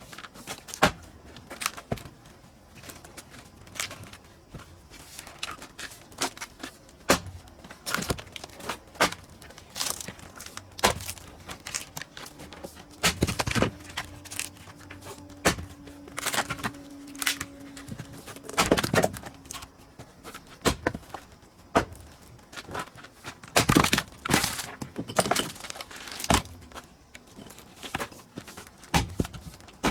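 Pine firewood being split and handled: sharp wooden knocks and thuds every second or two, some in quick clusters, as split pieces knock together.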